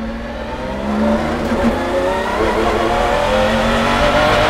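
McLaren F1 GTR Longtail's BMW V12 racing engine accelerating, its revs climbing and dropping back at quick upshifts of the sequential gearbox.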